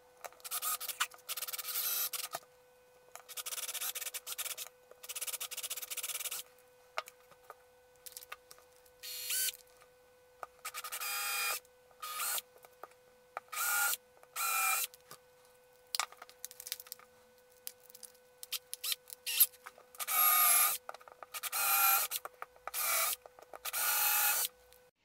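Power drill boring holes in board, run in about a dozen short bursts of half a second to two seconds with pauses between.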